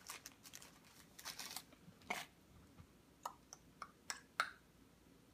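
Faint rustling of a paper sandwich wrapper, then a few soft, scattered clicks and crackles as a crispy chicken sandwich is pulled out and broken open by hand.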